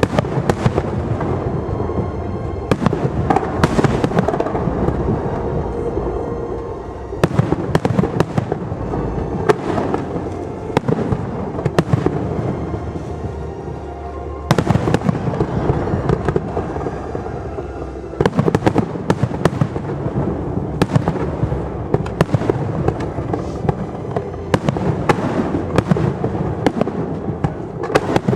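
Fireworks display: a dense, continuous run of sharp shell bursts and crackles, easing briefly about a quarter, half and two-thirds of the way through before picking up again.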